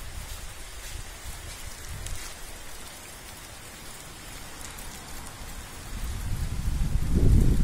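Steady hiss of heavy monsoon rain, with a low rumble swelling near the end.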